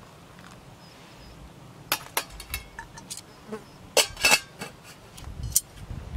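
Stainless-steel camping pot and its lid clinking as the pot is set down on a small gas stove and the lid put on. A few light metal clicks come about two seconds in, then a louder cluster about four seconds in.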